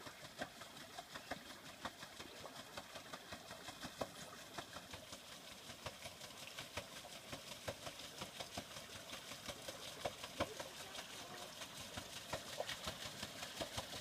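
Pedal boat's paddle wheel churning the water: a quick, uneven run of small splashes and clicks, growing louder as the boat comes closer.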